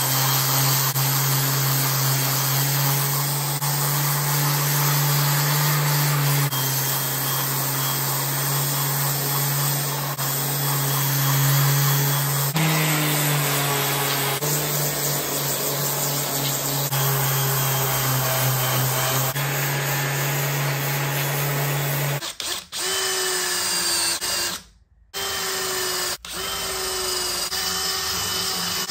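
Random orbital sander running on a Classic Mini's cast-iron cylinder head, a steady motor hum in several cut-together stretches. About three-quarters of the way through it gives way to a cordless drill spinning a wire wheel against the head, with a higher whine that stops and restarts a few times.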